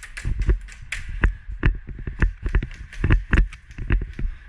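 Running footsteps, a quick even beat of about three thudding steps a second.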